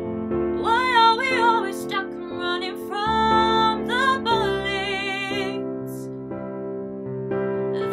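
A woman singing a slow pop ballad over a recorded piano backing track. Her voice drops out a little past the middle, leaving the piano chords playing alone until she comes back in at the very end.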